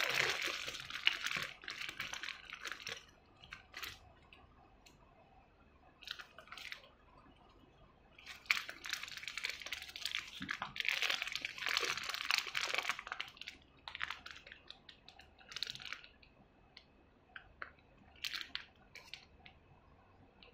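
Small clear plastic bags crinkling as they are handled and opened by hand. The crinkling comes in irregular bursts: a long stretch at the start, another in the middle, then a few shorter crinkles near the end.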